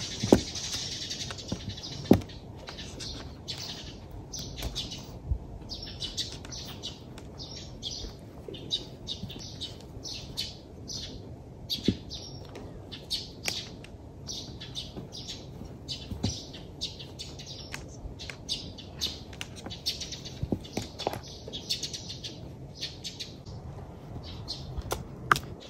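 Small birds chirping in many short, quick calls throughout, with a few sharp knocks, the loudest about two seconds in.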